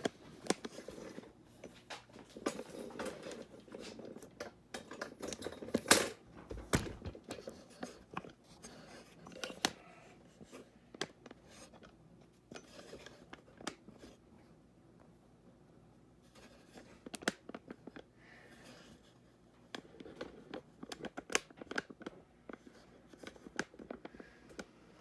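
Handling noise as a camera is picked up, turned around and set down: scattered clicks, knocks and rustling, with one loud knock about six seconds in.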